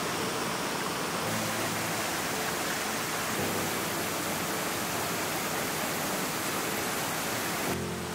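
Steady rush of a small, strong-flowing waterfall pouring into a river pool.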